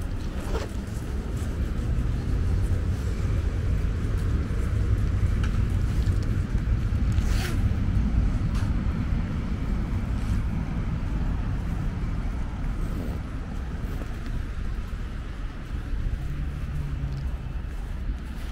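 Outdoor city street ambience: a steady low rumble of road traffic, with a few sharp clicks scattered through it, the strongest about seven and a half seconds in.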